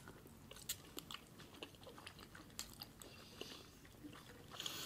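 Two people chewing soft raw salmon sashimi close to the microphone: faint, irregular wet mouth clicks and smacks, with a short breathy hiss near the end.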